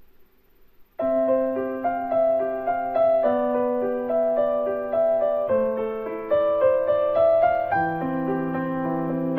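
Background piano music: a melody moving over held bass notes, starting suddenly about a second in after a near-silent moment.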